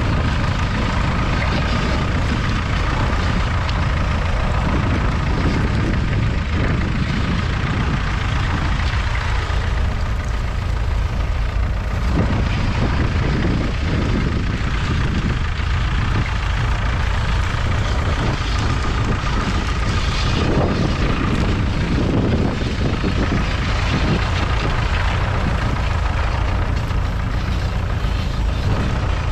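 Ferguson TEF20's 2.1-litre four-cylinder diesel engine running steadily under load as the tractor pulls a two-furrow mounted plough.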